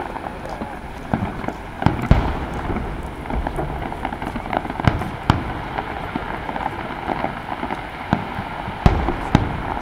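Aerial firework shells bursting in a rapid irregular string of sharp bangs, the loudest about two seconds in, again around five seconds and near the end.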